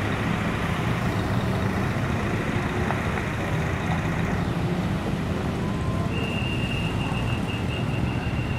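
Diesel engine of a long-distance coach running at low speed as the bus pulls slowly away, a steady low rumble. A thin, high steady tone joins about six seconds in.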